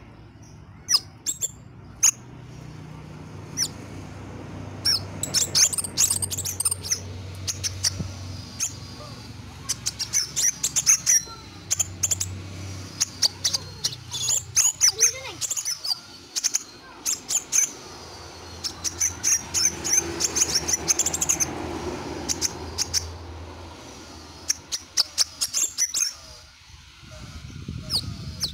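Crimson sunbird (kolibri sepah raja) calling in full voice, with runs of short, sharp, high-pitched chirps in quick bursts, pausing briefly between runs.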